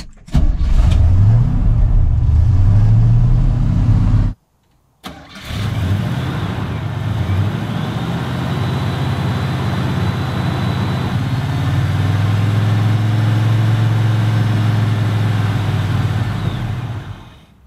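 A Chevrolet squarebody truck's engine catching and starting after years of sitting and a timing adjustment, revving up briefly. The sound cuts off abruptly for under a second, then the engine runs steadily for about twelve seconds before fading out near the end.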